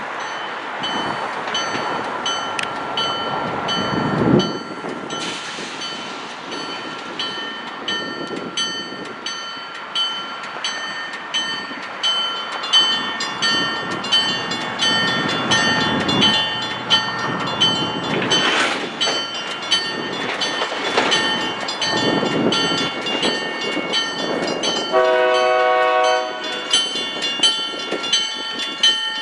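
EMD GP9 diesel locomotive approaching slowly with a train of freight cars, its bell ringing steadily over the rumble of the engine and wheels. About 25 seconds in the horn sounds one short blast.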